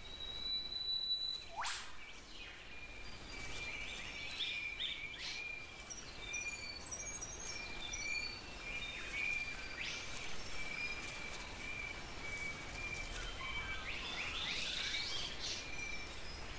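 Forest ambience of birds chirping and calling: a steady, slightly pulsing high note runs throughout, with scattered short chirps over it, a quick rising whistle about two seconds in and a flurry of chirps near the end.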